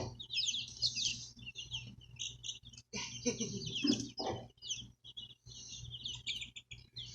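A crowd of newly hatched chicks peeping constantly, many high-pitched chirps overlapping, with a few low muffled sounds about three and four seconds in.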